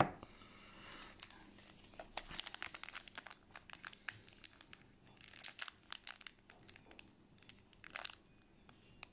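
Foil wrapper of a Magic: The Gathering booster pack crinkling and crackling in irregular bursts as it is handled and opened, with a single knock right at the start.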